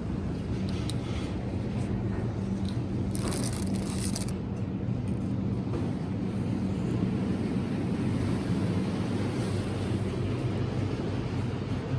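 Steady low mechanical rumble with a constant hum, and a brief hiss about three seconds in.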